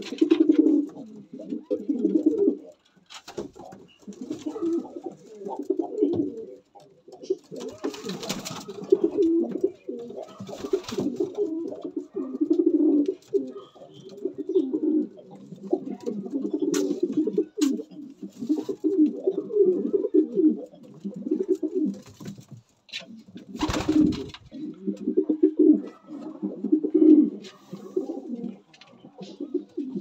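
Racing pigeons cooing almost without a break, the low throaty coos of several birds overlapping and pulsing. A few brief rustling knocks cut in, the sharpest late on.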